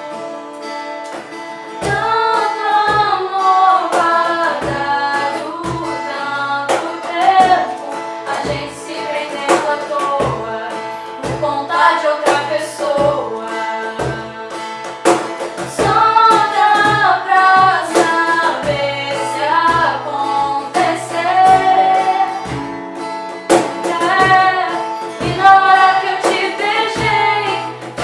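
Two women singing a sertanejo ballad together to a strummed acoustic guitar, with a low thump marking each beat.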